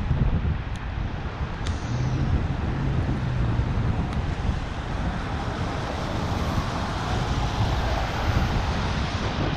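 Wind rushing over the microphone of a camera on a moving bicycle, over a steady din of road traffic that swells a little in the second half.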